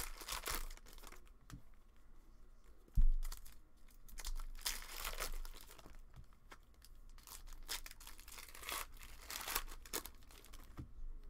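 Plastic wrappers of trading card packs being torn open and crinkled, in a few separate rips. A dull thump about three seconds in.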